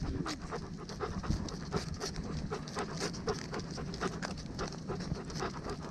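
A dog panting steadily, heard up close.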